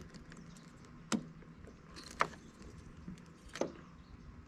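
Three sharp plastic clicks and knocks, about a second apart, as a tail-light wiring connector is handled and pushed into its socket.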